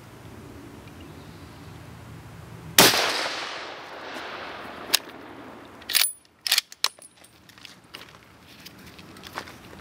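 A scoped rifle fires a single shot about three seconds in, the report trailing off in a long echo. Then come several sharp metallic clicks and clacks as the rifle's action is worked.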